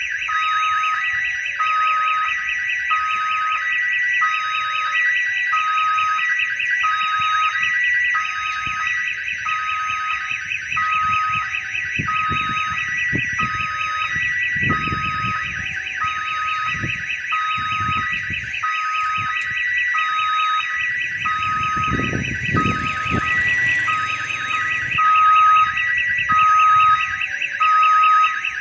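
Railway level-crossing warning siren sounding continuously: an electronic tune of short repeating notes over a fast warble, much like the jingle of an odong-odong children's ride. It is warning that a train is about to pass the crossing. Passing road traffic rumbles underneath for a while in the middle.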